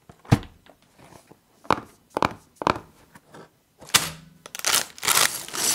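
Several sharp thunks, then plastic crinkling that grows louder near the end: a plastic bag of LEGO pieces being handled.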